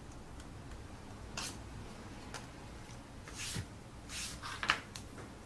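Cardboard egg-box pieces being handled and moved about on a work surface: a few brief rustles and scrapes, with a sharp tap near the end.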